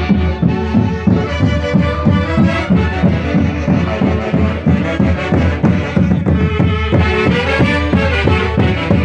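Andean típica orchestra playing a santiago, with melody instruments over a quick, steady beat.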